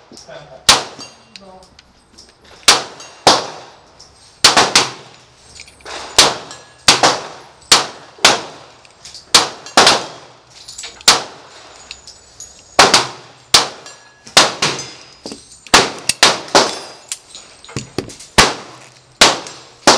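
9mm pistol shots from a Springfield XD(M) 5.25 at a steel-target range: about two dozen sharp reports in uneven strings, some in quick pairs, each followed by a short ring of struck steel plates and echo.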